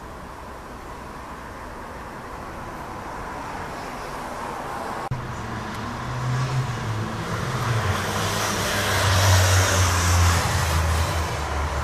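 A vehicle's rushing noise that swells, joined about five seconds in by a low engine hum; it peaks near the end and eases off slightly. There is one sharp click about five seconds in.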